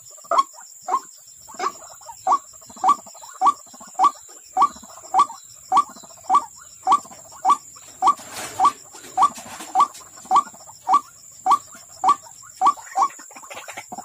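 White-breasted waterhen call, a short note repeated very evenly about 1.7 times a second, used as a lure call to draw waterhens to the trap.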